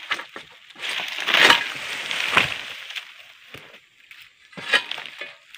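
The freshly sharpened blade of an egrek, a sickle on a long pole, is dragged through an oil palm frond stalk. It makes a crunching, crackling rasp while the leaves rustle, for about the first three seconds. Near the end there is one more short crack.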